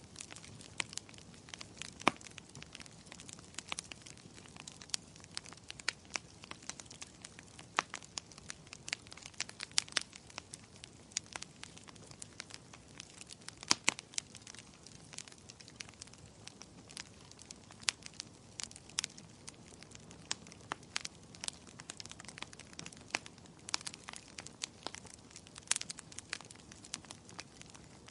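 Firewood burning in a fireplace, crackling: irregular sharp pops and snaps over a soft steady hiss of the flames, with louder pops about two seconds in and again about halfway through.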